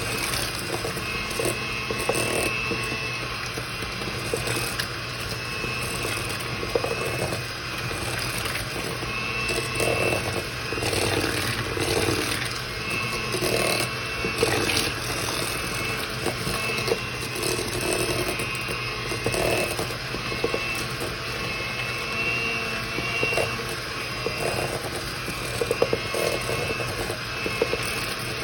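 Electric mixer running steadily, beating butter and sugar together.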